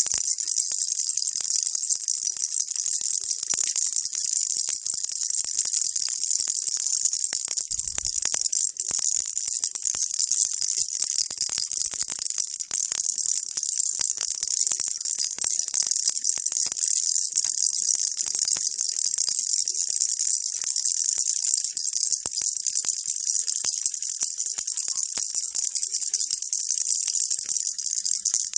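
Baby rattle shaken continuously, a dense steady rattling of small beads, bright and hissy, with many fine clicks and no pauses.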